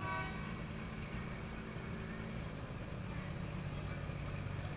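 Pickup truck engine running at low speed as the truck crawls closer, a steady low rumble. A short pitched sound at the very start.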